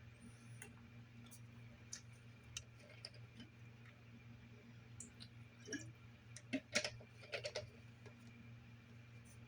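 Scattered light clicks and small handling knocks of objects being moved about, thickest about two-thirds of the way through, over a steady low electrical hum.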